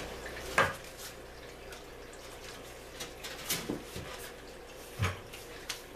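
Scattered knocks and clatters from handling things on and around a large wooden fish tank, several separate sharp knocks a second or more apart, over a faint steady hum.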